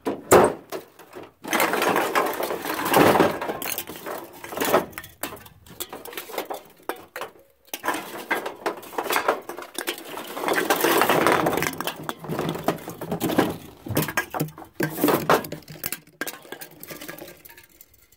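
Empty aluminium drink cans clattering and clinking against each other and the truck bed as a hand rummages through them, in irregular bursts that die down near the end.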